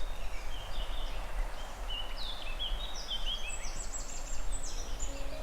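A songbird singing a quick, varied song of short high chirps and whistled notes, some stepping up and down in pitch, over a steady low rumble.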